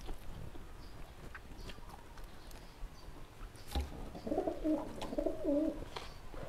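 A dove cooing: one short phrase of low, wavering notes about four seconds in, lasting under two seconds. Under it are small clicks and smacks of hand-eating.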